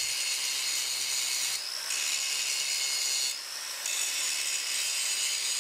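Angle grinder grinding the steel face of a forged hammer held in a vise, flattening it by taking down the high spots. A steady hissing grind with a high whine, which eases off twice for about half a second as the disc lifts from the work.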